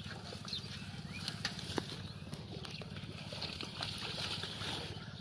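Rustling and tearing of water hyacinth and wet grass being pulled up by hand, with scattered small snaps and crackles.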